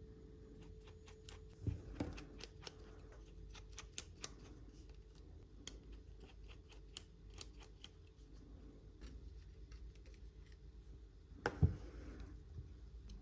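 Small tools and tiny phone parts being handled during an iPhone SE teardown: scattered light clicks and ticks, a couple of soft knocks about two seconds in, and one louder knock near the end.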